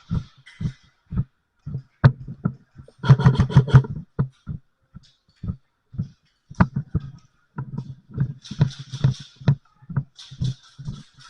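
Heavy footsteps thumping about twice a second, with a quick rattling run of about eight sharp clicks around three seconds in and another run near nine seconds.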